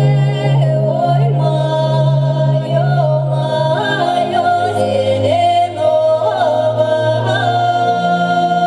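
Several voices singing a folk-style song in a cappella or choir fashion, over a steady low drone that shifts pitch a few times.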